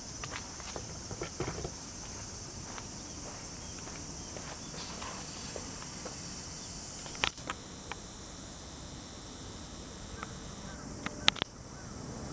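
Steady high-pitched chorus of summer insects, with scattered light clicks and two sharper clicks, about seven seconds in and near the end.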